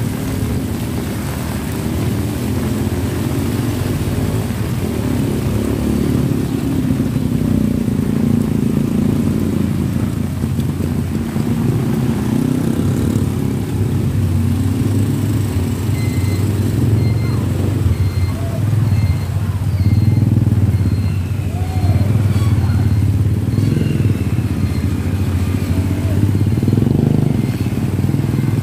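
Motorcycle engines of tricycles (motorcycles with sidecars) running and passing close by, a steady low rumble. From about halfway, a faint short beep repeats at an even pace.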